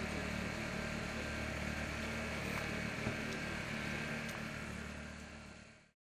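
A motor running steadily with a low hum over outdoor street noise, with one short knock about three seconds in. It fades out near the end.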